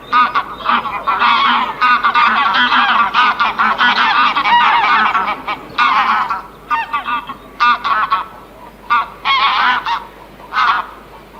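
Geese honking, many calls overlapping for the first six seconds or so, then single honks spaced a second or so apart.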